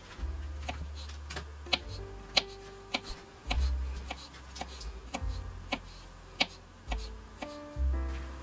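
Small knife cutting a miniature carrot into thin strips on a wooden cutting board: irregular sharp clicks of the blade striking the board, a few a second. Soft background music with low held notes plays underneath.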